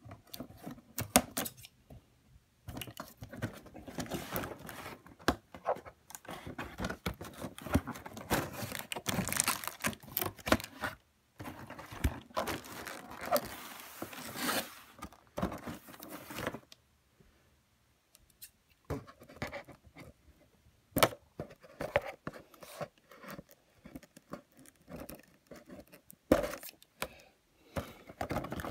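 A cardboard toy box being handled and opened by hand: tearing, scraping and rustling of cardboard and packaging in dense bursts, a short pause a bit past halfway, then sparser handling noises with a sharp click.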